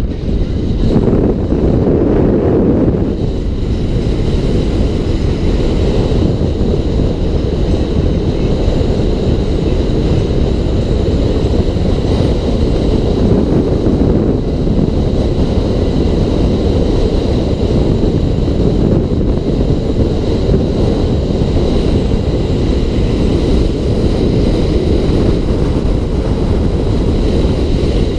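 Car driving at road speed: a steady, dense low rumble of tyre and wind noise.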